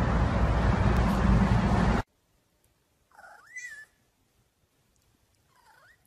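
A loud rush of wind noise on the microphone cuts off suddenly about two seconds in. Then a domestic cat meows once, its pitch rising, and meows again more faintly near the end.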